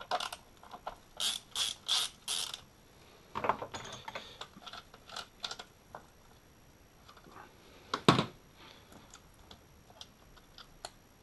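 Socket ratchet clicking in four short runs while undoing a 10 mm bolt, followed by scattered light clicks of tools and plastic parts and one sharper knock about eight seconds in.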